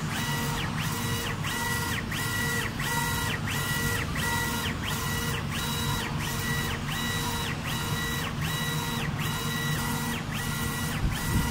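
Stepper motors of a double-head 1390 CO2 laser engraving machine whining as the laser head sweeps back and forth while raster engraving: each pass is a pitch that rises, holds and falls, about three passes every two seconds. A steady low hum runs underneath.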